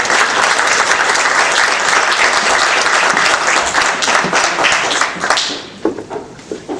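Audience applauding, dense and steady, then dying away about five and a half seconds in.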